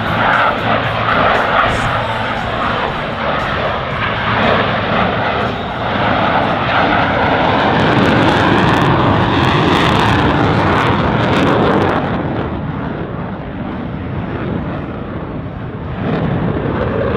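Blue Angels F/A-18 Hornet jets passing low overhead. The jet engine noise builds to its loudest about eight to eleven seconds in, then falls away.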